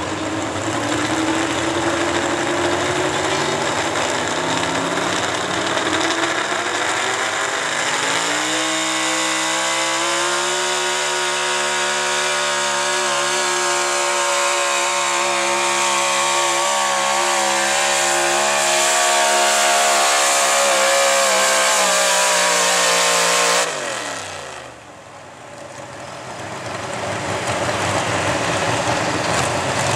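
A square-body 4x4 pickup's gas engine at full throttle pulling a weighted sled. The revs climb for about eight seconds, then jump to a high, steady scream held for about fifteen seconds. The throttle then closes suddenly and the revs fall away, and a steady noise rises again near the end.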